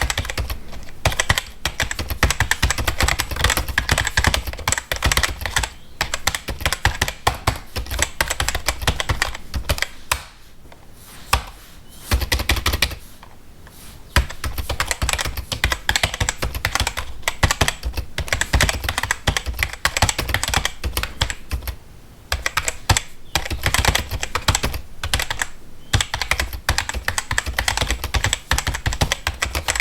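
Fast typing on a computer keyboard: a dense run of key clicks, with short pauses about ten seconds in and again a little later.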